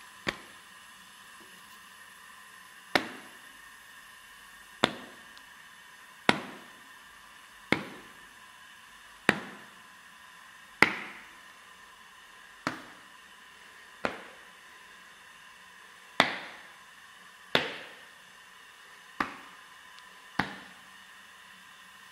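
A series of about thirteen sharp knocks or taps, roughly one every one and a half seconds, each dying away quickly, over a steady faint electrical hum.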